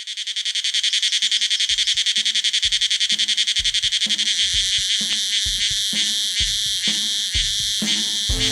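A cicada call fades in and keeps up a loud, fast-pulsing high buzz. About a second and a half in, a song intro starts under it, with a drum beat about once a second and bass notes.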